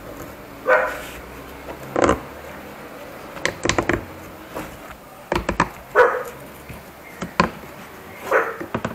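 A dog barking about four times, in short barks spread a couple of seconds apart. Between the barks come small clusters of sharp clicks and knocks as the metal blade is handled on the tiled tabletop.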